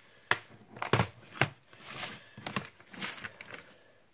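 Clear plastic diamond-painting storage box being unlatched and opened and a small drill container lifted out: several sharp plastic clicks and knocks with soft rustling between them.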